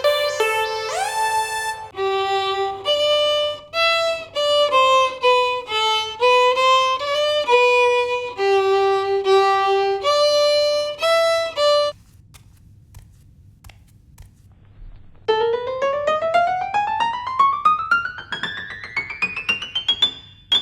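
Violin playing a quick melody of changing notes that stops suddenly about twelve seconds in. After a few quieter seconds, one long steady glide climbs in pitch through the last five seconds.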